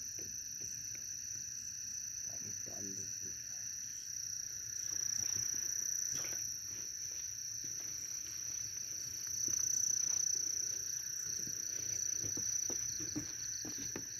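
Night insects in a mangrove forest keep up a steady, high-pitched shrilling chorus that swells twice.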